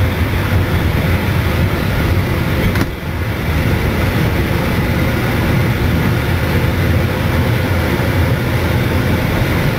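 Heritage steam train running slowly, a steady rumble heard from on board, with a brief drop in level about three seconds in.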